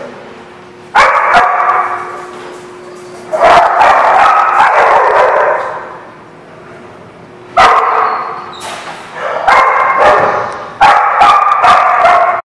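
Dogs barking in a hard-walled playroom, in several sudden loud bouts with the barks echoing on after each.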